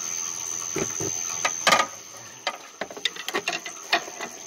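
Irregular metal clicks and knocks of a pry bar being worked against the engine around a stuck water pump, with one louder knock a couple of seconds in.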